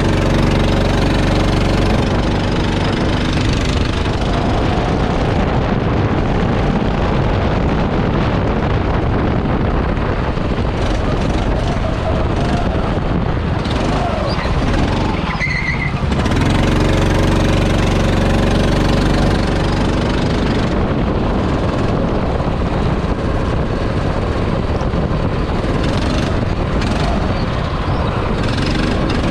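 Racing kart engine driven hard round the track over steady wind and road noise; about halfway through the engine note drops away briefly, as when lifting off for a corner, then comes back strongly.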